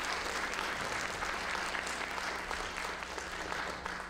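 Audience applauding, dense and steady, thinning out near the end.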